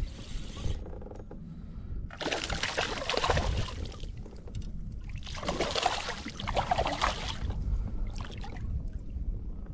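Water splashing in two bursts of about two seconds each, over a steady low rumble.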